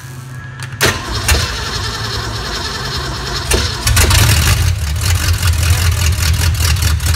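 Ford 302 small-block V8 boat engine with open chrome headers being started: it fires and runs, getting clearly louder about four seconds in. There are a few sharp clacks in the first four seconds. The engine is cold-blooded, reluctant to start and run when cold.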